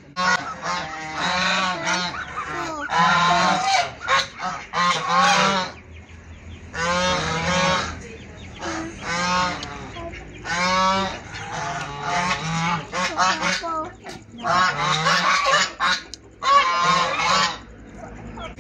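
Domestic geese honking in a string of loud calls, coming in several bouts with short pauses between them.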